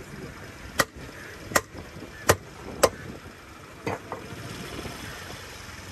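A series of five sharp knocks, irregularly spaced about half a second to a second apart over roughly three seconds, over a steady low background noise.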